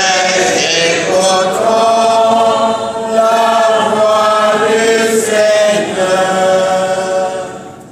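Church choir singing a chant-like sung response in long held notes, dying away shortly before the end.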